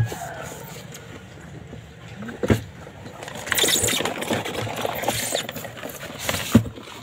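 Live mud crabs being handled in a box: scratchy rustling and scraping of shells and legs, with a few sharp clicks, busiest in the second half as a crab is lifted out. A falling call, likely the tail of a rooster crow, fades out at the very start.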